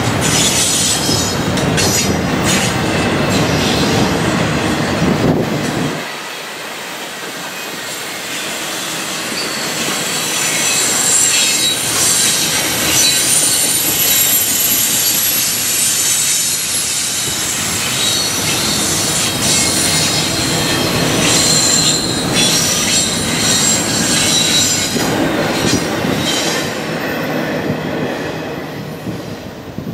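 Freight train rolling by, its steel wheels squealing thin and high against the rails. A deep rumble cuts off suddenly about six seconds in and builds again near the end.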